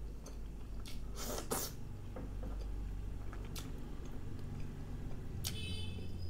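Eating sounds of fingers squishing and tearing chicken pieces in thick masala curry gravy, with a few short wet bursts and clicks, the loudest about a second in.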